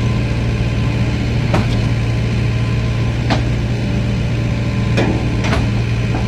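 Excavator engine running steadily, with four sharp knocks spread through it.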